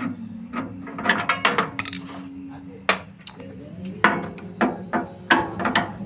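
Metal clicks and knocks of hand tools working on a drinks display fridge's sheet-metal fan housing as the condenser fan is taken off, in irregular clusters, over a steady low hum.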